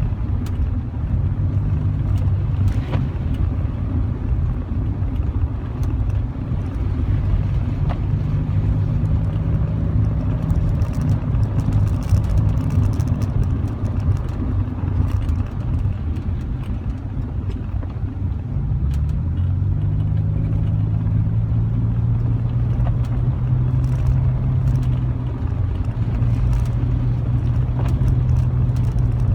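Car engine running steadily under load on an uphill climb, with road noise. The engine note dips and settles at a new pitch about two-thirds of the way through.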